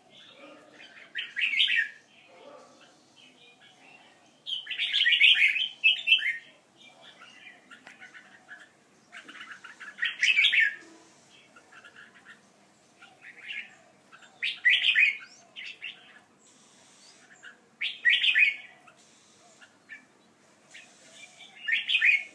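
Pet birds chirping in short bursts of rapid chirps, about seven bursts a few seconds apart.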